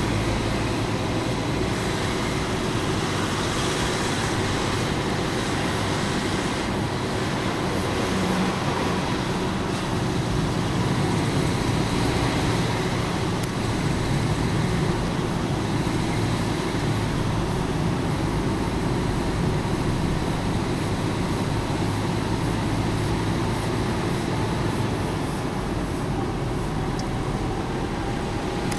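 Steady engine and road noise heard from inside a car's cabin as it drives slowly.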